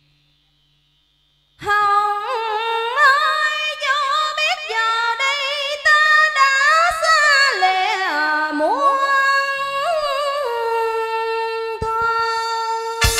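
A woman singing unaccompanied into a handheld microphone, with long held notes, vibrato and sliding ornaments, starting about a second and a half in. A keyboard comes in right at the end.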